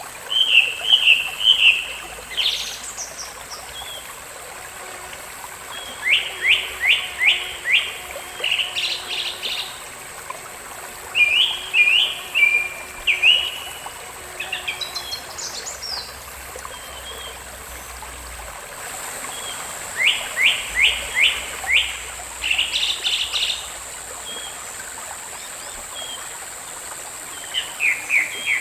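Birds singing: bursts of chirps and warbles, and runs of about five quick down-slurred notes, coming every few seconds over the steady rush of a small stream.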